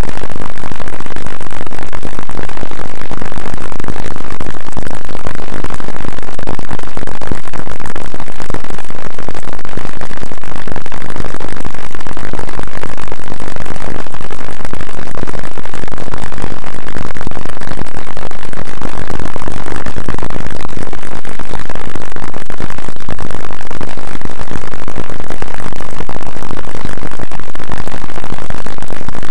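Loud, constant, heavily distorted noise with no clear tune or beat, clipping at full level throughout.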